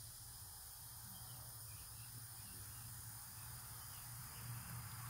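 Steady, high-pitched chorus of insects trilling, with a low steady hum underneath.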